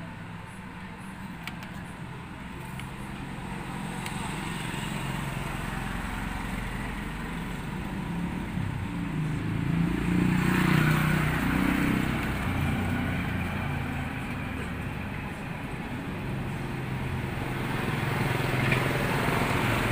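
Low rumble of a motor vehicle, swelling about halfway through as if one passes by.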